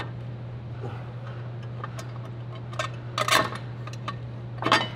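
Metal parts and tools clinking and tapping while a supercharger bracket is worked loose from under the car, with a short cluster of clinks about three seconds in and another near the end, over a steady low hum.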